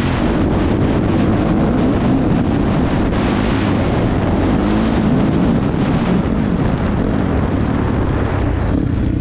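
Motocross bike engine running hard at speed, its pitch rising and falling with the throttle, under heavy wind noise on the helmet-mounted microphone.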